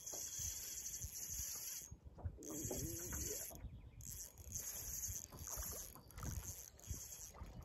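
Spinning reel cranked in bursts while a hooked fish is reeled in on a hard-bent rod: a high whir that pauses briefly twice. Low, uneven water and wind noise sits underneath.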